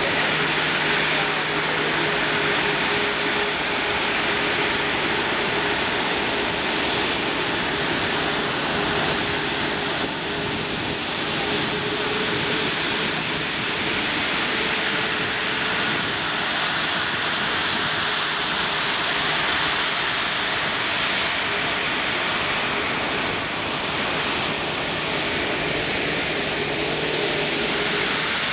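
Airbus A340-600's four Rolls-Royce Trent 500 jet engines running at taxi power: a steady rush of jet noise with a faint constant whine.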